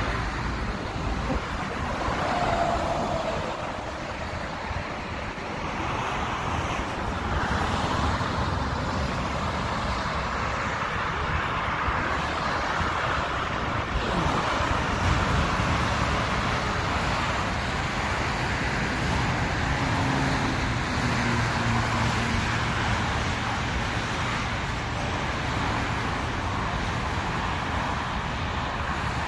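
Continuous outdoor engine and traffic noise, a steady wash of sound with a passing engine falling in pitch about two seconds in and another about twenty seconds in.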